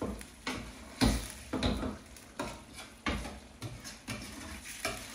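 A utensil stirring and scraping a thick curry sauce around a frying pan, in repeated short strokes about one or two a second, with the sauce sizzling underneath.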